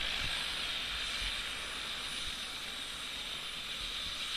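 Helicopter's turbine running on the ground: a steady hiss with a high, even whine and no change in pitch.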